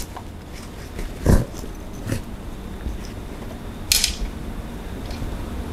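Non-woven fabric tote bag being handled and shaken out: a dull thump about a second in, a softer knock shortly after, and a brief crisp rustle of the fabric near four seconds.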